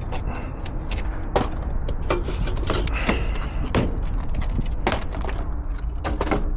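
A string of sharp knocks, clicks and rattles from things being handled, over a steady low hum.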